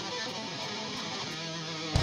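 Electric guitar playing on its own in a break in a metal song, notes held and ringing with the bass and drums dropped out; a sharp hit right at the end brings the full band back in.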